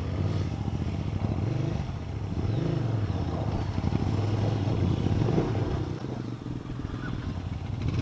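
Motorcycle engine idling on a stopped bike, a steady low hum.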